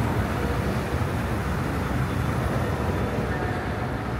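Steady low rumble of outdoor city noise, with wind buffeting the microphone.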